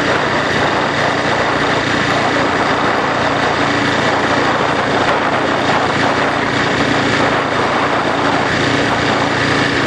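Aprilia Falco's 1000 cc V-twin engine running steadily while the motorcycle cruises at about 38 mph, heard from the rider's seat.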